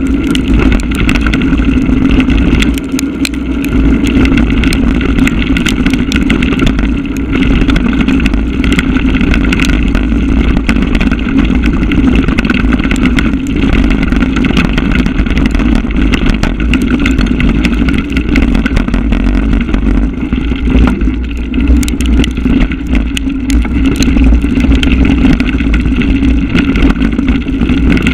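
Mountain bike riding fast down a dirt trail, heard from a bike- or rider-mounted action camera: continuous tyre-on-dirt and wind rumble with a steady buzzing drone, and constant small rattles and clicks from the bike over rocks and roots.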